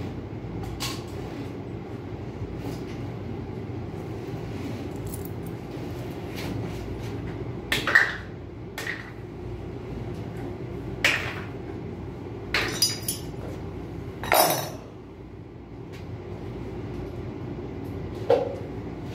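Metal hand tools clinking and knocking against the steel battery rack and batteries during a UPS battery replacement: about half a dozen sharp, separate clinks, the loudest about eight seconds in, over a steady low hum.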